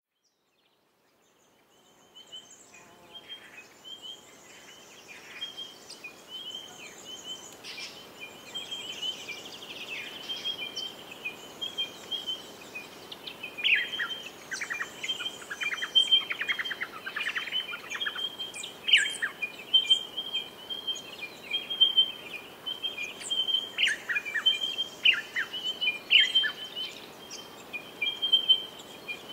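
Birds chirping and calling, with many short chirps and quick falling whistles over a steady high-pitched trill. It fades in over the first couple of seconds and grows busier about halfway through.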